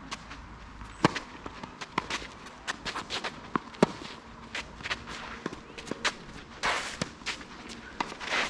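Tennis play: sharp racket-on-ball strikes, the two loudest about a second and almost four seconds in, with lighter ball bounces, footsteps and a couple of short shoe scuffs on the court between.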